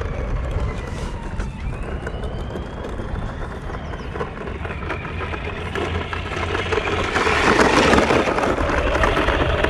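Small RC crawler truck's electric motor and drivetrain whining as it drives, the pitch rising and falling with the throttle. Wind rumbles over the microphone, and the sound grows louder and rougher near the end.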